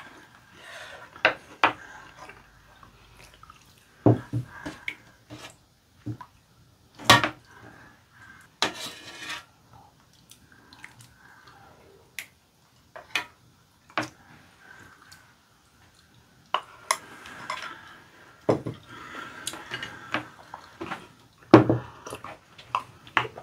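Spoons and ceramic bowls clinking and knocking on a dining table during a meal, in scattered separate strikes with quieter scraping between them.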